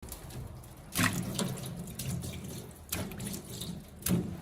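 Water running from a tap into a sink, with three louder splashes: about a second in, near three seconds and near the end.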